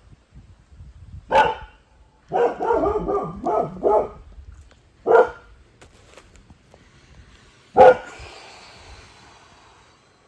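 Dog barking: one bark, then a quick run of several barks, then two more single barks a couple of seconds apart.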